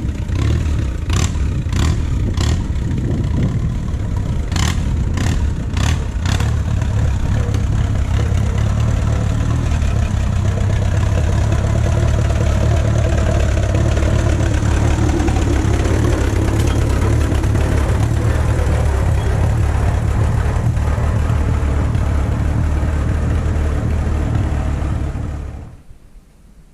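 1939 Allis-Chalmers B tractor's four-cylinder engine running steadily, with a run of sharp clicks in the first several seconds; the engine sound cuts off near the end.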